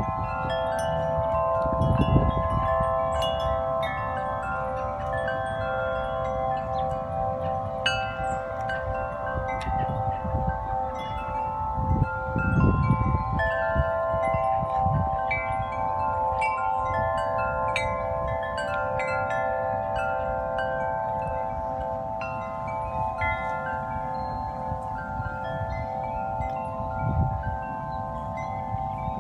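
Several large tuned wind chimes ringing in the wind: deep notes hang on and overlap while higher notes are struck over and over. Gusts of wind rumble on the microphone about 2 seconds in and again around 12 seconds in.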